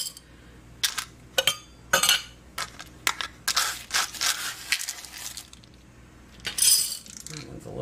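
Black beans being spooned from a wire-mesh strainer into a glass mason jar: a string of sharp clinks and scrapes of the spoon on the mesh and of beans dropping into the glass, with longer scraping runs in the middle and near the end.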